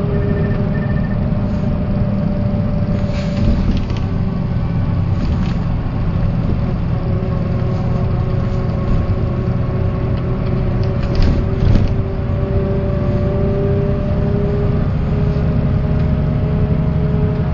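Mercedes-Benz O408 bus under way, heard from inside: the OM447hLA diesel engine drones steadily with a steady mid-pitched whine over it. Short rattles or knocks come twice, a few seconds in and again near the two-thirds mark.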